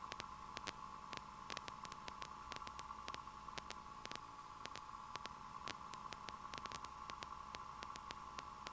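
Faint steady hiss with scattered sharp clicks: the noise floor of the aircraft's headset intercom audio feed between transmissions, with no engine sound coming through.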